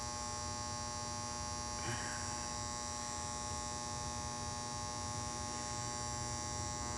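Steady electrical hum or buzz made of many fixed tones, with a faint click about two seconds in.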